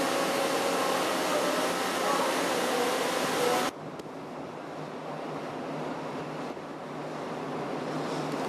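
A loud, steady rushing noise cuts off abruptly about three and a half seconds in. It leaves a quieter rushing noise with a steady low hum.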